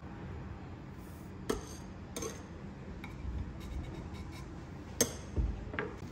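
Metal offset spatula spreading cream on a crepe cake, with about four sharp clinks as the blade knocks against the cake turntable, the loudest about five seconds in, followed by a soft low thump.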